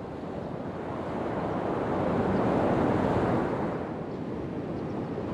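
Ocean surf washing on the beach, swelling to a peak about halfway through and then easing off.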